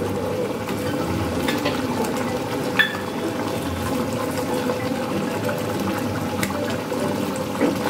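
Thick paneer curry gravy bubbling and simmering in a kadai over a turned-up gas flame, with a few small pops and ticks.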